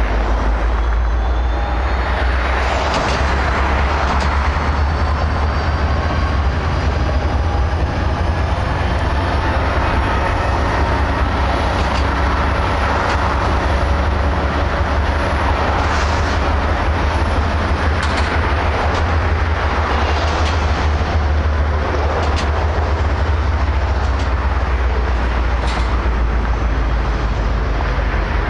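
BNSF freight train rolling past: a steady heavy rumble of wheels on rail, with scattered sharp knocks and clanks and faint thin high squeals that slowly rise and fall.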